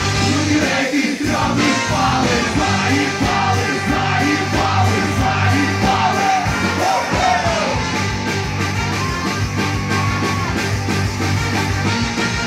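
Live rock band with a brass section playing loud: drums, electric guitar, keyboard, trumpet and trombone, with a male singer shouting and singing into the microphone.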